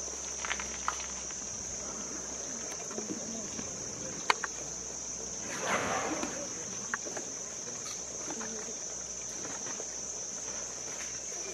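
Steady, high-pitched drone of insects in the forest. Over it come a sharp snap about four seconds in and a short rustling burst just before six seconds.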